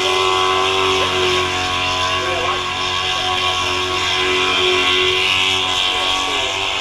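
Burnout car's engine held at high, near-steady revs, with a dense hiss of spinning, smoking tyres underneath.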